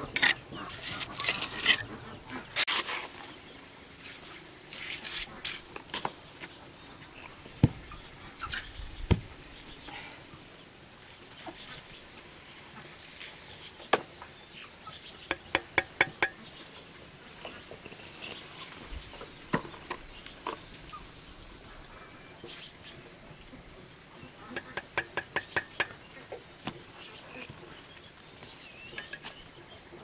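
Clinks and scrapes of masonry work, a metal trowel on bricks and cement mortar. There are scraping strokes at first, then scattered knocks, with two quick runs of taps about six a second, one halfway through and one near the end.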